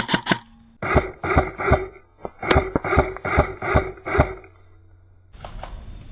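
Airsoft gun firing single shots in quick succession, about three a second: a run of three about a second in, a sharper crack about two and a half seconds in, then a run of five. A steady rustling noise follows near the end.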